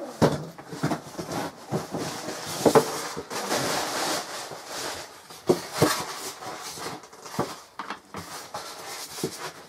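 Irregular knocks and clicks with stretches of rustling, loudest about three to four and a half seconds in: things being handled.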